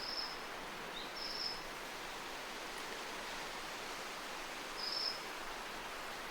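Ryukyu minivet giving short, high calls three times, once at the start, once about a second in and once about five seconds in, over a steady background hiss.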